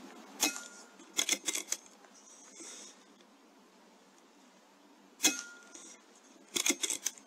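Two shots from an Airmaks Krait L .22 PCP air rifle, each a single sharp crack followed about a second later by a quick run of four or five metallic clicks as the action is cycled to chamber the next pellet. The second shot is the louder.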